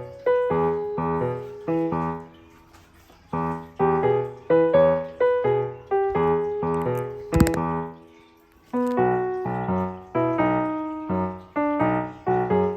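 Background piano music: gentle chords struck one after another and left to ring out, with two short pauses. A single sharp click cuts through about halfway.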